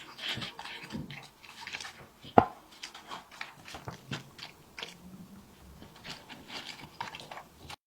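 Dog eating food, with irregular chewing and crunching, and a single sharp clink about two and a half seconds in.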